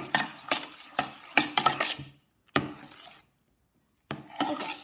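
A spoon stirring and scraping round a bowl of thick glue mixture, with quick knocks against the bowl in short runs. The sound drops out completely twice, like edit cuts.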